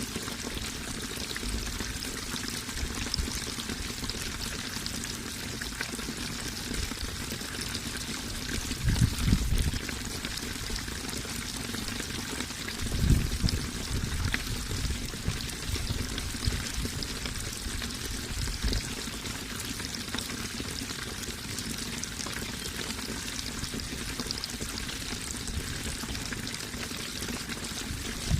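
Steady flowing water, splashing and trickling without pause. Brief low rumbles come about nine and thirteen seconds in.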